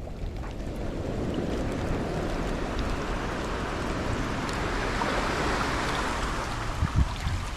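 Surf washing in on a beach, a rushing noise that swells about halfway through and then eases, over a low rumble of wind on the microphone.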